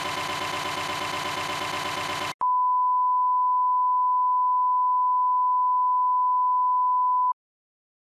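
A dense, noisy wash of sound cuts off abruptly, and a single steady 1 kHz line-up test tone, the tone that goes with broadcast colour bars, starts at once. The tone holds for about five seconds, then stops sharply.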